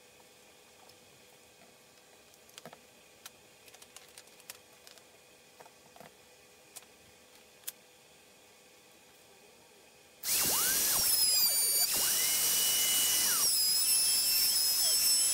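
A few light clicks and knocks of tools being handled, then about ten seconds in a Porter-Cable electric router starts suddenly and runs loudly with a high whine, its pitch shifting as it cuts along the edge of a wooden template.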